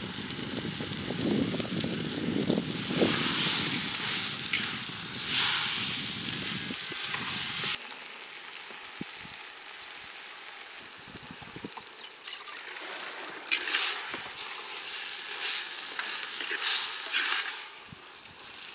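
Pounded country chicken sizzling as it fries in oil in a clay pot while it is mixed by hand and stirred. The sound drops abruptly about eight seconds in to a quieter hiss, with louder sizzling surges later on.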